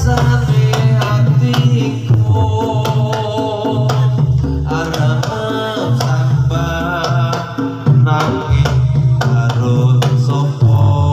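Live Javanese gamelan music accompanying a jathilan horse dance: drums beating a steady, driving pattern under a busy repeating melody of pitched percussion notes.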